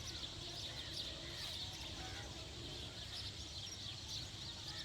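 Many small birds chirping together in a continuous, overlapping chorus, over a steady low rumble.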